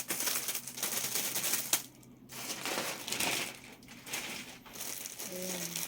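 Plastic packaging crinkling and rustling with small clicks as a fabric storage organizer is handled, easing off briefly about two seconds in.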